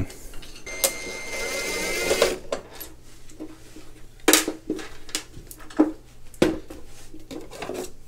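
Cordless drill/driver running for about a second and a half with a steady whine, backing out a screw from a water heater's plastic controller cover. Several sharp clicks and knocks follow as the cover and screws are handled.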